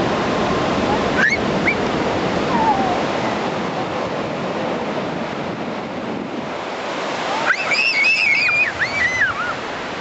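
Ocean surf breaking and washing up on a sandy beach, a steady roar of water. Near the end a short run of high, wavering calls rises over it.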